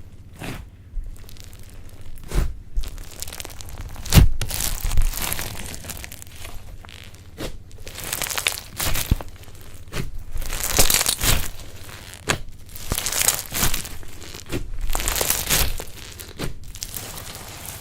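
Slime being squeezed and worked by hand, making irregular crackling, crinkling and popping sounds with sharp clicks between them.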